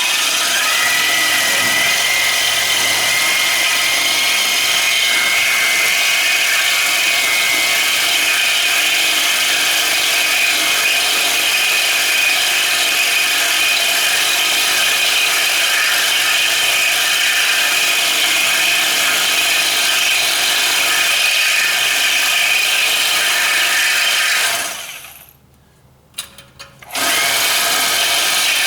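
Handheld power tool cutting through a metal bracket on a rusty car chassis: its motor spins up with a rising whine at the start, then runs steadily under load, stops for a moment about 25 seconds in and starts cutting again about two seconds later.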